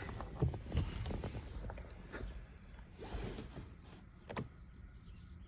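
Faint scattered knocks and clicks of someone handling things inside a car, with a sharper click near the end.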